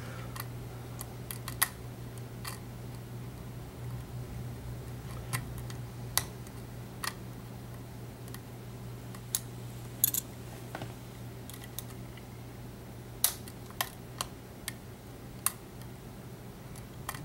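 Scattered small metallic clicks of a thin hook pick working inside the keyway of an EVVA ALS euro cylinder under tension, irregular and a few seconds apart, over a steady low hum.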